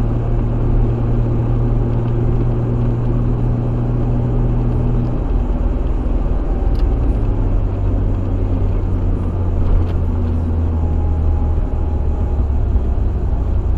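1987 Nissan Hardbody D21 pickup heard from inside the cab, engine running steadily over road noise. The engine note drops lower about five or six seconds in as the truck slows. Near the middle there is a sharp click of the turn-signal stalk being flicked on.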